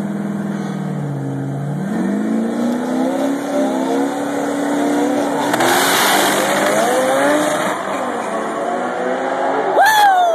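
Turbocharged drag cars, a turbo LS V8 Camaro and a turbo rotary Mazda RX7, running at the start line, their engine pitch stepping up about a second and a half in as they are revved for the launch. At about six seconds they launch in a loud surge, engine pitch rising and dropping with each gear change as they pull away down the strip and fade. Near the end a loud, falling cry.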